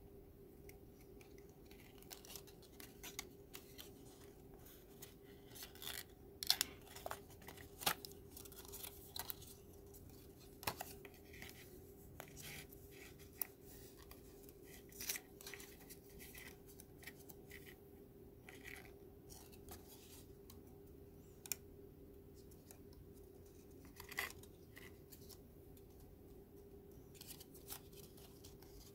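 Stiff Kent paper card being creased and folded by hand: scattered crisp crackles and snaps, thickest about six to eight seconds in and again a little before the end.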